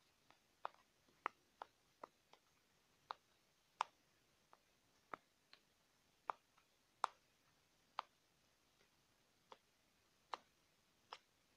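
Magnets snapping together as they are handled close to the microphone: a string of sharp, irregularly spaced clicks, about eighteen, with near silence between them.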